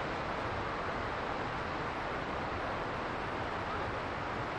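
Steady rushing outdoor noise at an even level, with no calls, knocks or other distinct events.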